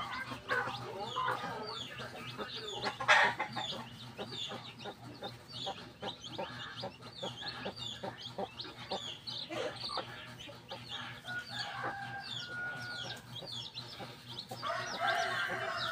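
Native chicken chicks peeping over and over, short high cheeps several times a second, with the hen clucking among them. A louder call stands out about three seconds in, and the calling thickens near the end.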